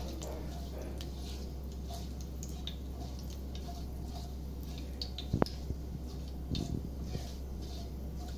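Fenugreek and mustard seeds frying in hot oil in a nonstick pan, sizzling with scattered light pops as they begin to crackle: the tempering stage, oil hot enough to release the seeds' aroma. A silicone spatula stirs through them, with one sharp click about five seconds in.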